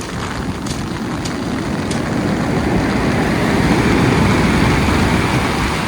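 Stormy sea surf together with strong wind buffeting the microphone, a loud rushing rumble that swells toward the middle and eases slightly near the end.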